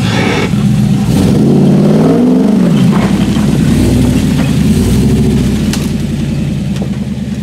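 Jeep Wrangler's engine revving up and back down about a second in as it climbs over rocks, then running steadily under load. A few sharp knocks are heard along the way.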